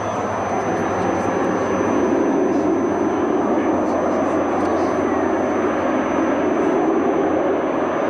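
Canadair amphibious water bomber flying past, a steady engine and propeller drone that grows a little louder about two seconds in.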